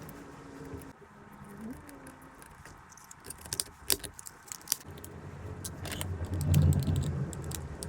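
Small sharp clicks and clatter of plastic power-window master switch parts being handled and snapped back together, with a louder dull low rumble about six seconds in.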